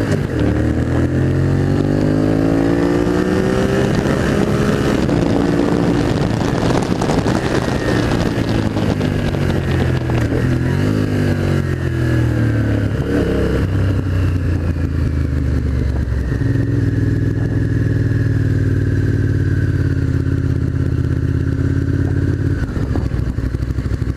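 Honda VTR1000 Firestorm's 90-degree V-twin pulling hard with rising revs, then backing off with a rush of wind noise. It settles to a steady low-speed run for the second half, with a brief dip near the end.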